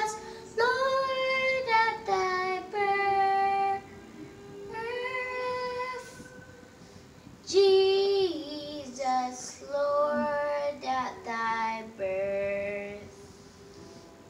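A young girl singing solo and unaccompanied, in held phrases with short pauses between them; the last phrase ends shortly before the end.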